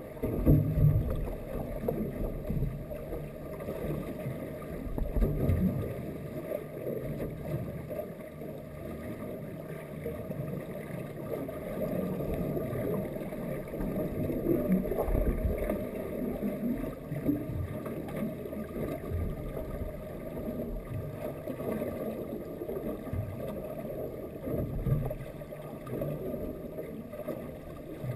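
Muffled underwater noise heard through a GoPro's waterproof housing: a steady low rumble of moving water, with a few dull knocks, the loudest about half a second in.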